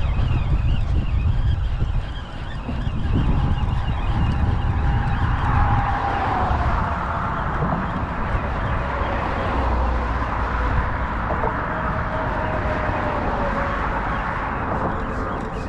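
Road traffic passing on the bridge: a steady rush of car tyres and engines, heavy and low for the first few seconds, then with a faint whine that slowly falls in pitch as a vehicle goes by.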